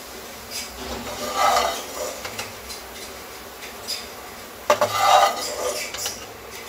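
Metal slotted spoon scraping and knocking against a non-stick kadhai as fried kababs are lifted out. There are two bouts of scraping, about a second and a half in and again near five seconds in, the second beginning with a sharp knock.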